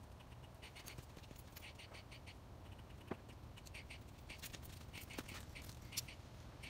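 Faint outdoor background with many brief, irregular high ticks and chirps, and a few soft clicks of hands handling a match and matchbox, the sharpest near the end.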